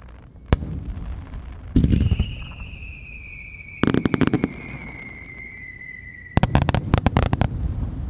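Fireworks star-mine barrage: aerial shells bursting with a single sharp bang, then three volleys of rapid bangs about two seconds apart. Between the volleys a long high whistle slowly falls in pitch and cuts off as the last volley begins.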